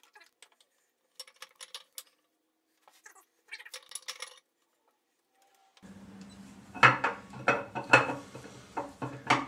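Steel camshaft being slid by hand into the cam bearings of an LS 5.3 V8 block, its lobes clicking and clinking against the bearings in short bursts. Near the end come several louder knocks as the shaft is forced further in: it is a tight fit.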